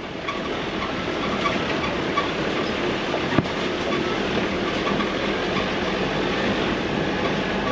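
Car driving along a rough, rutted dirt track: a steady rumble of tyres on the dirt with the body rattling, and one sharp knock about three and a half seconds in.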